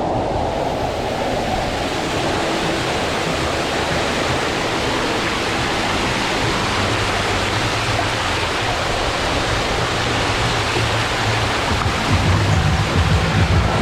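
Steady rush of water sliding through an enclosed water-slide tube, with a low rumble that grows louder near the end.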